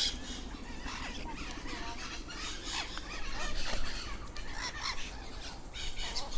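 Many parrots calling at once in an aviary, short overlapping calls, loudest around three to four seconds in.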